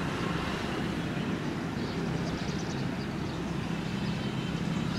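Steady low engine hum with a constant hiss, with no change in pitch or level.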